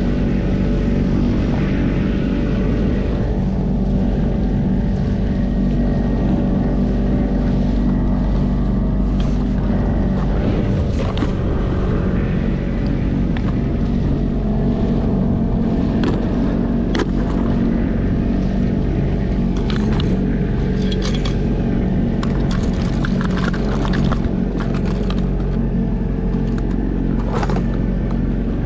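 Small outboard motor running steadily, pushing an inflatable boat along at trolling speed, with scattered sharp slaps and knocks, more of them in the second half.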